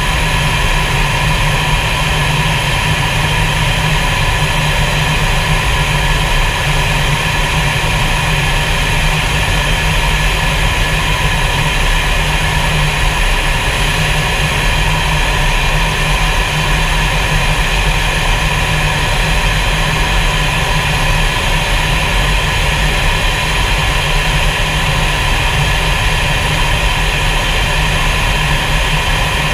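Steady jet engine and rushing air noise inside a fighter jet's cockpit in flight, unchanging throughout.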